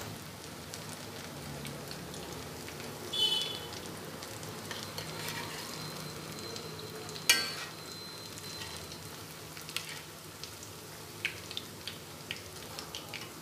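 Banana-flower vadai deep-frying in hot oil, a steady sizzle, while a slotted metal spatula turns and lifts them. The spatula gives a ringing metallic clatter about three seconds in and a sharp clink against the pan about seven seconds in, with small ticks near the end.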